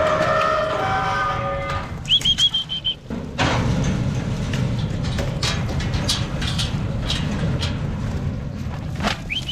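A cow moos and the call fades out about two seconds in. A short run of high chirps follows. From about three seconds in a vehicle engine runs steadily, with rattling clicks, and the chirps come again near the end.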